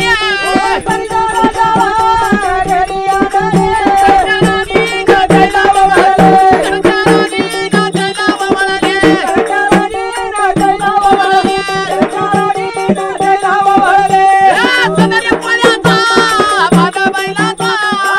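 Marathi folk devotional song in gondhal style: a man sings a wavering melody over a steady drone from a one-string tuntuna, with an even hand-drum beat and jingling rattles.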